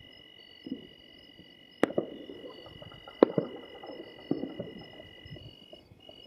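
Distant firecrackers going off: two sharp bangs about a second and a half apart, with fainter pops around them, over a steady trilling of insects.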